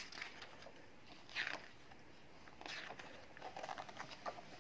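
Magazine pages being turned by hand: a few faint paper swishes about a second apart, then light paper crinkling near the end.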